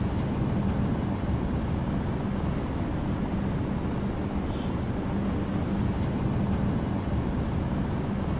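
Ship's engines running with a steady low drone and hum as the ferry comes into port.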